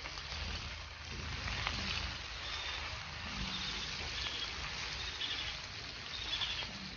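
Shell-on shrimp sizzling steadily in hot oil in a wide metal pan as they are turned with a metal spatula.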